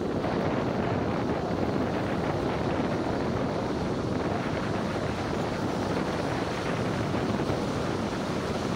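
Steady rushing of wind over the microphone of a camera on a moving car's roof, mixed with tyre hiss from the wet cobblestone road.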